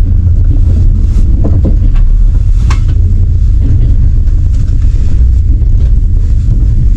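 Passenger train running, heard from inside the carriage: a loud, steady low rumble, with a brief sharper sound a little over halfway through the first half.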